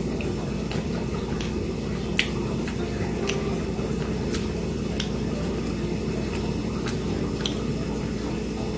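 A person chewing a grilled panini with the mouth close to the microphone: wet squishy chewing with scattered sharp mouth clicks, the loudest about two seconds in, over a steady low hum.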